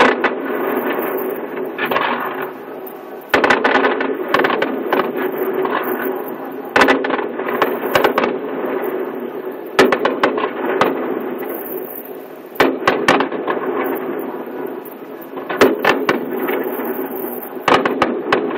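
Aerial fireworks shells bursting, heard from indoors: a sharp bang every one to three seconds, some followed by crackling, over a steady background hum.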